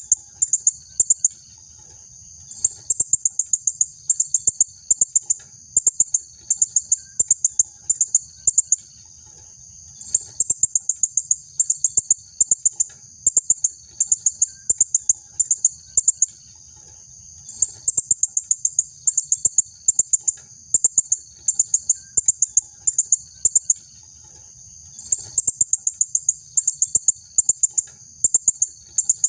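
Female blue-crowned hanging parrot (serindit) calling steadily: rapid clusters of sharp, very high-pitched notes, repeated over and over with a few short pauses.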